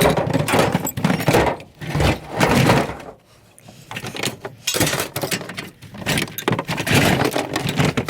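Scrap metal pieces clattering and knocking together as they are moved and dropped, a run of irregular knocks and rattles with a short lull about three seconds in.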